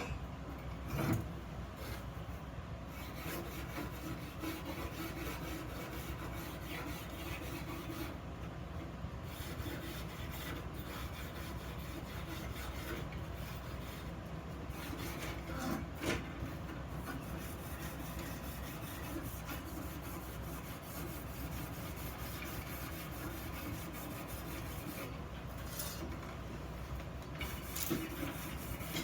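Steady rubbing and scraping of a tool on metal, with a few light knocks about a second in and again around the middle.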